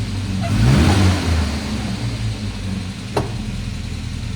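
1966 Volvo 122's B18 1.8-litre four-cylinder engine running after its fuel tank, lines and clogged fuel filter were replaced, now sounding happy. It gives a brief rev that rises and falls about a second in, then idles steadily, with a single sharp click about three seconds in.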